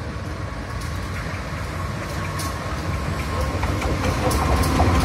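GE diesel-electric locomotive approaching, its diesel engine running with a low rumble that grows steadily louder as it nears. A faint steady tone rides above it, and a few sharp ticks come near the end.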